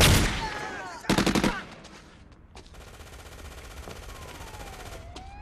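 Film-soundtrack automatic gunfire: a loud burst at the start, then a rapid volley of shots about a second in, followed by quieter rapid fire. Near the end a siren starts, its pitch dipping and then rising.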